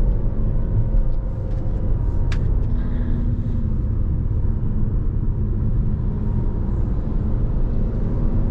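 Inside the cabin of a Jeep Renegade 1.3 turbo at highway speed: a steady low rumble of tyres and road with engine hum. There is a brief click about two seconds in.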